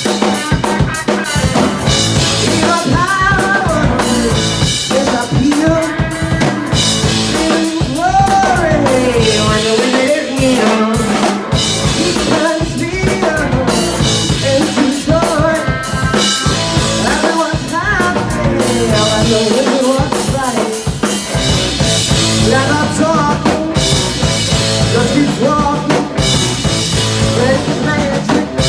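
Live rock band playing, led by a drum kit with kick, snare and rimshots, with a lead melody that bends and wavers in pitch over it.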